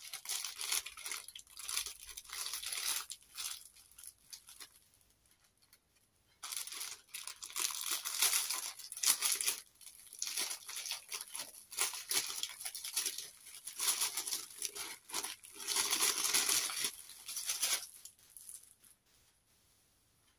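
Thin plastic packaging crinkling and tearing as it is handled and pulled open, in spurts, with a lull about four to six seconds in and quiet near the end.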